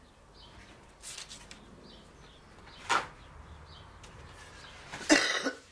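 Workbench handling sounds: a light click, then a sharp knock about halfway through. Near the end comes a short, loud rip of a paper towel being torn off its roll.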